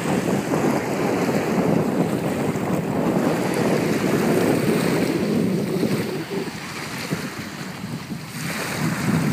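Wind buffeting the microphone over surf washing onto a beach, a steady rushing noise that eases off about six seconds in and builds again near the end.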